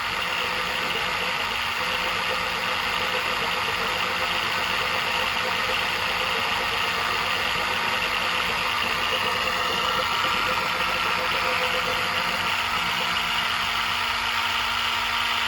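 Oil extraction pump running steadily as it draws transmission oil up a tube from the gearbox filler hole; the low hum changes slightly near the end.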